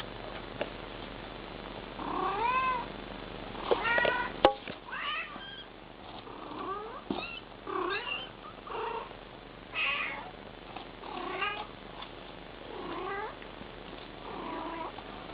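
A mother cat and her kittens meowing back and forth: a string of short meows, some arching up and down in pitch, following one another every second or so. A sharp click stands out about four and a half seconds in.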